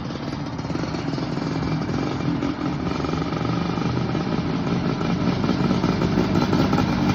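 Go-kart engine running at a fairly steady pitch, slowly growing louder.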